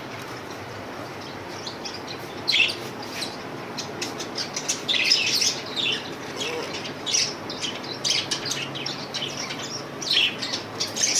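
Budgerigars chirping: short, high chirps in irregular clusters, starting about two seconds in.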